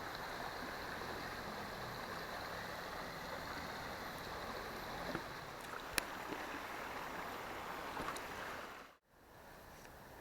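Small river's water rushing steadily, with a few short sharp clicks around the middle. After a brief break near the end, the water sound goes on more quietly.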